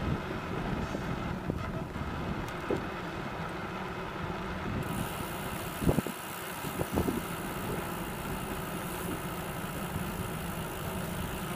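Riding noise of a bicycle on asphalt picked up at the handlebars: a steady rumble of tyres and frame with wind on the microphone, the hiss growing brighter about five seconds in. Two short knocks sound a little past halfway, about a second apart.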